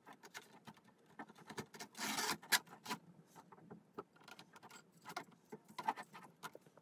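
Hands handling a 3D-printed plastic paddle-wheel drive in a wooden frame: irregular clicks, knocks and rubbing, with a longer scrape about two seconds in.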